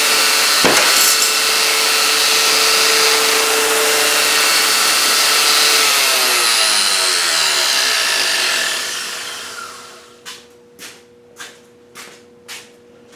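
Shop-built belt grinder driven by an electric motor, running with a loud steady noise and hum. About six seconds in it loses power and coasts down with falling pitch, ending in a run of light, regular clicks about half a second apart. The owner finds it noisier than expected and suspects its cheap bearings.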